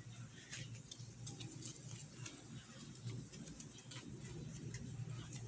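Faint scattered ticks and crinkles of thin soft-drink-bottle plastic being folded and handled between fingers, over a low steady hum.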